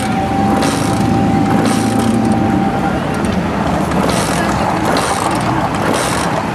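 Classic car engines running at low speed as the cars pull away one after another, with crowd chatter around them. A thin steady tone sounds through about the first three seconds.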